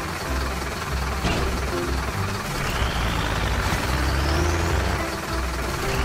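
Cartoon sound effect of a tracked excavator's engine: a low rumble, with a click about a second in. About halfway through, a high rising glide lasts about two seconds.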